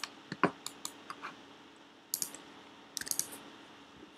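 Computer keyboard typing in short irregular bursts of a few key clicks, with one louder knock about half a second in.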